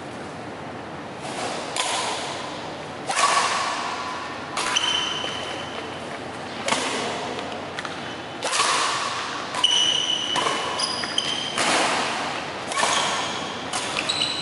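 Badminton rally: racket strings striking the shuttlecock, one sharp hit every one to two seconds, with short squeaks of court shoes on the floor between shots.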